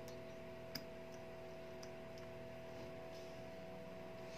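Faint, scattered ticks and clicks of small tools and the plastic internal parts of a Samsung Galaxy M30s being handled, the sharpest about three-quarters of a second in. A steady background hum runs under them.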